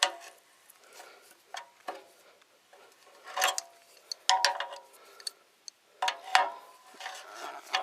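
Metal parts clinking and scraping in a few separate clicks with a short ring, as a part is handled and worked back on during a diesel engine oil change.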